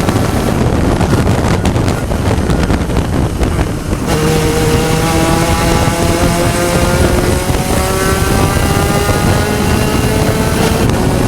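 Spec Racer Ford Gen3 race car's four-cylinder engine running at racing speed, heard onboard with heavy wind rush. About four seconds in, a clear engine note with several overtones comes through and drifts slowly in pitch.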